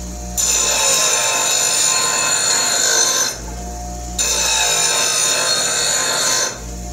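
Black & Decker bench grinder running with a steady hum while a steel adze head is pressed to the spinning wheel twice. Each pass is a harsh, hissing grind, the first about three seconds long and the second about two, with the motor hum between them.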